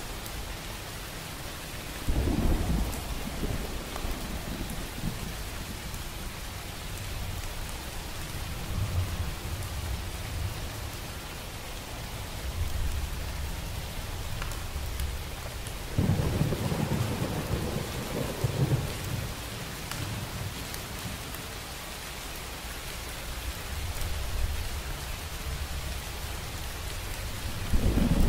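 Steady rain with thunder. A sudden low peal comes about two seconds in, another about halfway through, and a third near the end, each rumbling on for a few seconds.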